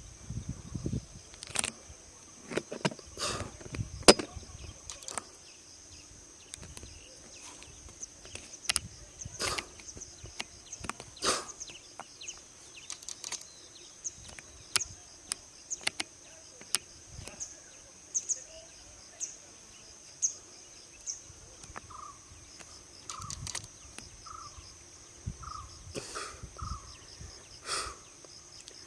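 Outdoor ambience: a steady high insect drone, cut by scattered sharp clicks and knocks, with some low rumbling in the first few seconds. Near the end a short call repeats about once a second.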